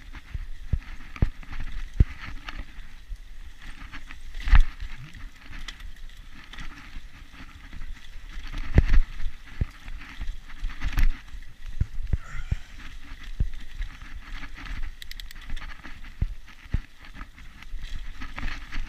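Mountain bike ridden over rough dirt singletrack: tyres rolling with a low rumble, broken by irregular knocks and rattles as the bike jolts over roots and rocks. The hardest jolts come about a quarter of the way in and around the middle.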